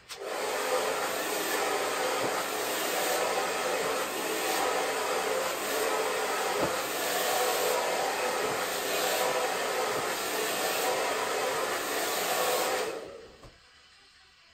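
Hand-held hair dryer blowing steadily as it dries a section of hair against a round brush. It starts at once and cuts off about 13 seconds in.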